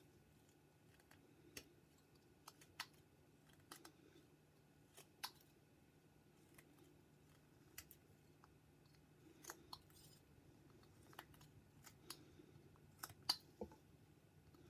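Whittling knife taking short cuts in a small wood carving: faint, irregular snicks of the blade slicing the wood, with a louder pair near the end.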